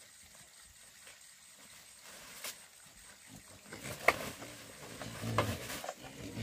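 Low, growling calls from a farm animal start about four seconds in. Sharp knocks fall among them, the loudest just after the calls begin.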